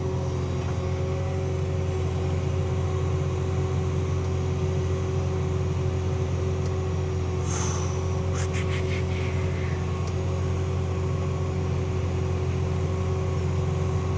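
Tractor engine running steadily at lowered revs while towing an air seeder. About halfway through there is a brief high squeal, then a quick run of clicks or rattles.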